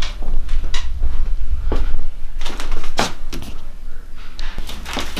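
A few short, sharp knocks and taps, the loudest about three seconds in, over a steady low rumble.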